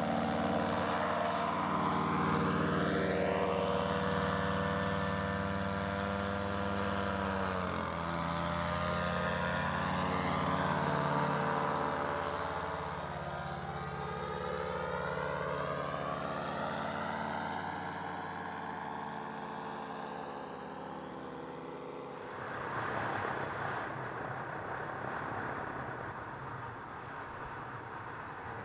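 Paramotor engine running steadily, its tone sweeping and phasing as it moves, with a brief drop in pitch about eight seconds in. About 22 seconds in the engine tone gives way to a rougher, noisier sound.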